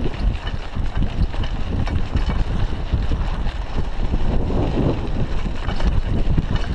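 Wind buffeting the microphone of a chest-mounted action camera on a bicycle moving along a dirt road, with the tyres rolling over sand and gravel and scattered clicks and rattles from the bike.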